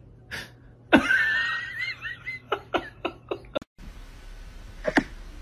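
A person laughing: a high wavering laugh about a second in, breaking into a quick run of short laughs that cuts off abruptly.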